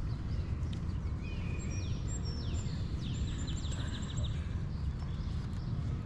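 Wind buffeting the microphone as a steady low rumble. A songbird sings over it from about a second in to about four seconds, with sliding whistled notes and then a quick trill of repeated notes.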